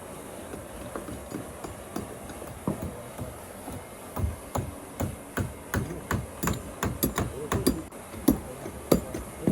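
Hammer driving nails into timber shuttering boards: a run of sharp knocks, sparse at first, then coming a few times a second from about four seconds in.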